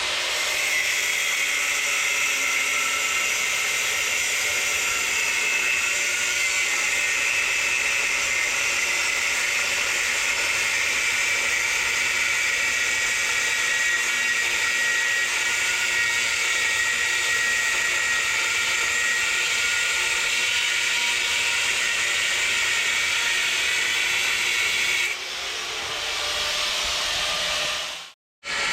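Steady hiss of a torch cutting steel plate, dropping to a softer hiss near the end and then cutting off.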